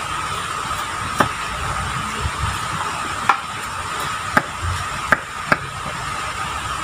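About half a dozen small sharp clicks over a steady hiss, from fishing line and hooks being handled and bitten close to the microphone while a hook is tied on.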